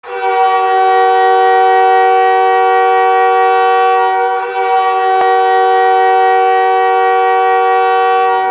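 Montreal Canadiens goal horn blowing a loud, steady chord of several tones held for the full blast, with a brief dip a little over four seconds in.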